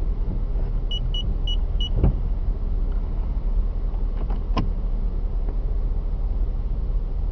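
Steady low rumble of traffic and idling engines heard from inside a car stopped at a city intersection. Four short, high electronic beeps come quickly one after another about a second in, and there are two sharp knocks at about two and four and a half seconds.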